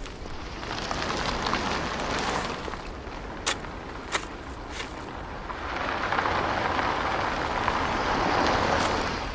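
Two swells of rushing noise, the second longer and louder, with two sharp clicks in the lull between them.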